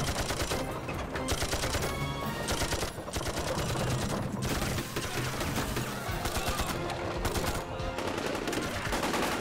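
Dense, rapid battle gunfire from machine guns and rifles firing continuously.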